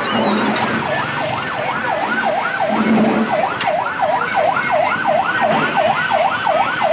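Rapid yelp siren of a security escort vehicle, its pitch sweeping up and down about three times a second without a break.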